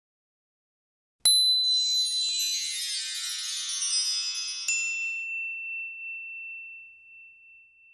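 Chime sound effect of an animated logo sting. After a moment of silence a bright strike sets off a shimmering cascade of high tinkling chimes, and a second ding near the middle leaves one high ringing tone that slowly fades out.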